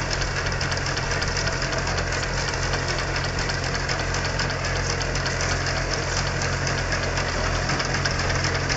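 Tractor's diesel engine running steadily with a fast, even clatter.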